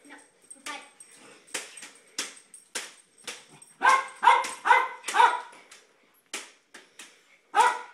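Jack Russell terrier barking in short, sharp barks: a few fainter barks at first, a quick run of four loud barks about midway, and another loud bark near the end.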